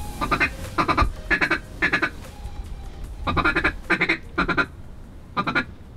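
Mallard hen-style quacking, loud and close: four evenly spaced quacks about half a second apart, a pause of about a second, three more quacks, then a single quack near the end.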